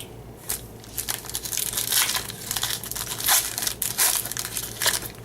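A baseball card pack's wrapper crinkling as it is torn open and handled, in irregular bursts of crackling.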